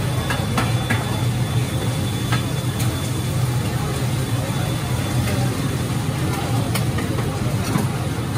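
Metal spatula and ladle scraping and clinking against a large wok now and then as an oyster omelette fries, over a steady low drone from the stall's cooking equipment.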